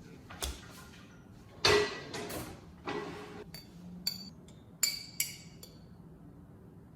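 Hard objects being handled and set down, with a few knocks and then several short, bright glassy clinks.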